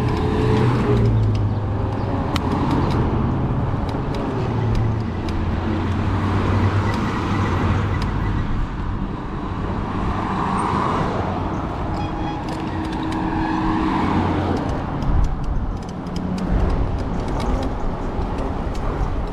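Road traffic: car engines running and vehicles passing close by, the noise swelling and fading several times.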